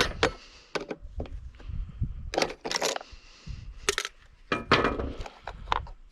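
Metal tools prying at a snap ring on a safe door: irregular sharp metallic clicks and clinks, about eight of them, with short scraping sounds in between.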